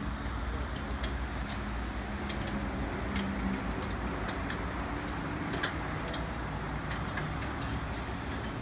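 Car wash tunnel equipment running: a steady mechanical hum and rumble with sharp clicks scattered through it.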